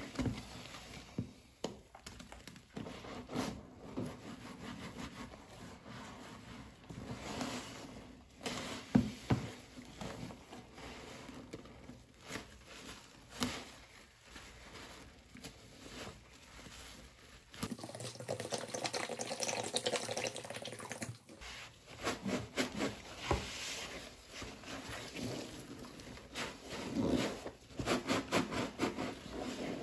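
A green epoxy sponge loaded with suds squeezed and worked by gloved hands in a basin of soapy cleaning liquid: wet squelches and crackling foam with sharper peaks at each squeeze. About two-thirds of the way in, liquid is poured into the basin for a few seconds, then the squelching squeezes resume.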